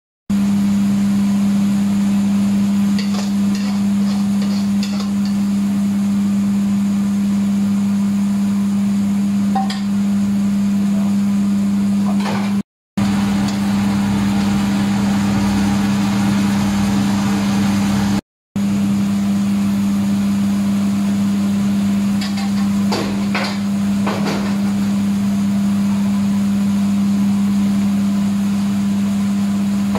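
A steady, loud low machine hum, with scattered metal clinks and scrapes of a ladle in a wok. The sound breaks off for a moment twice.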